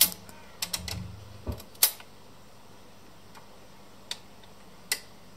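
Braun PS 600 turntable's tonearm mechanism lifting the arm off the record and swinging it back toward its rest: a cluster of sharp mechanical clicks and a dull thump in the first two seconds, then two single clicks near four and five seconds, over a faint steady low hum.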